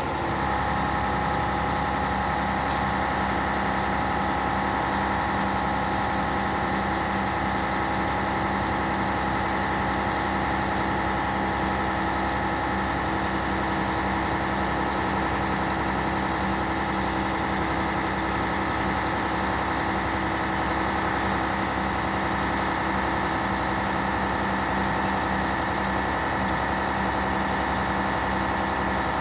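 Scania P113 fire truck's diesel engine running steadily to power the Bronto Skylift's hydraulics while the aerial boom is raised, with a steady whine over the engine note.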